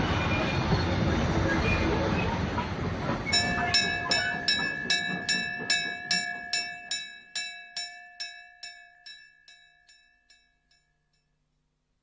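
A train's rumble, which cuts off sharply about three seconds in. Then comes a run of ringing clinks, about three a second, from a small object going round inside a ceramic cup. The clinks fade until they stop.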